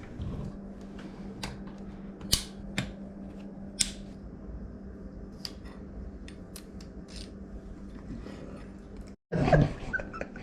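Scattered light clicks and taps of hands working on bicycle parts during a build, over a steady low hum. The sound cuts out abruptly near the end.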